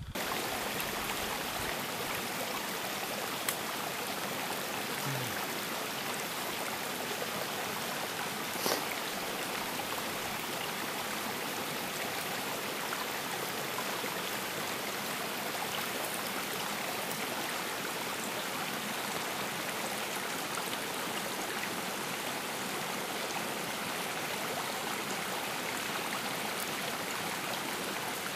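Spring-fed forest stream running, a steady rush of flowing water, with one brief click about nine seconds in.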